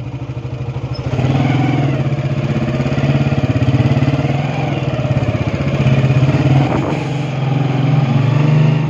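Motorcycle engine running steadily while the bike is ridden; it gets louder about a second in.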